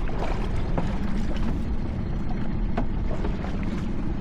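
Steady wind and sea noise around a small open boat, with a few short knocks.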